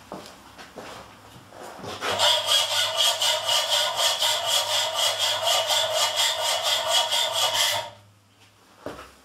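Quick, even scraping strokes like hand sawing, with a steady ringing tone. They start about two seconds in and stop abruptly about a second before the end.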